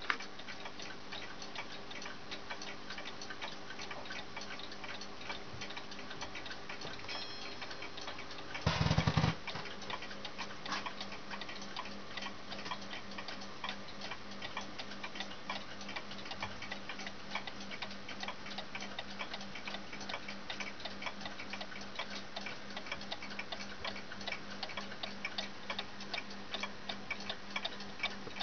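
Small cuckoo clock ticking steadily. A brief loud rustle or knock breaks in about nine seconds in.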